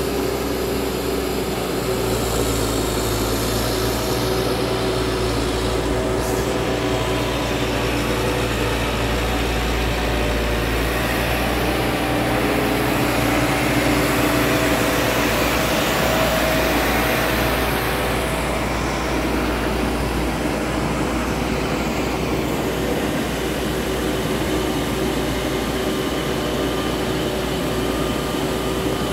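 Diesel engine of a crawler tractor running steadily as it works through a flooded rice paddy, louder as the tractor passes close about halfway through, then easing as it moves away.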